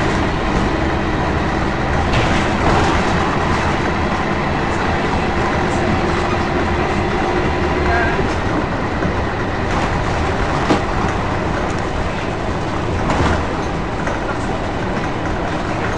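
Cabin noise inside a Scania L113CRL bus on the move: its diesel engine running under road noise, with the body rattling and a few sharp knocks, the loudest about two-thirds of the way through.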